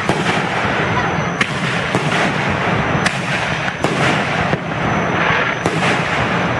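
Aerial fireworks shells bursting: a series of six or so sharp bangs, roughly a second apart, over a continuous noisy wash from the display.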